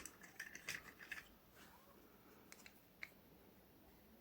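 Light clicks and taps of plastic coin capsules being handled, a quick run of them in the first second, then two or three single clicks in the middle, with near silence between.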